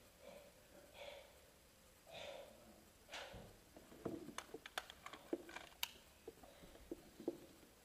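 Near-quiet room with a few faint soft sounds, then a run of faint, sharp, irregular clicks about four seconds in.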